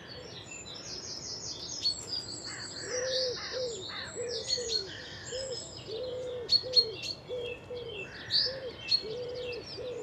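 Garden birdsong: small birds chirping and singing high and fast throughout, with a pigeon cooing a low phrase over and over from about three seconds in.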